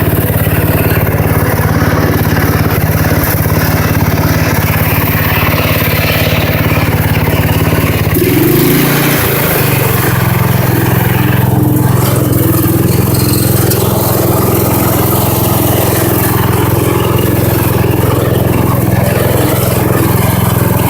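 Small engine with a homemade four-wheeler exhaust running steadily while the vehicle is driven. Its note changes about eight seconds in, as the engine speed shifts.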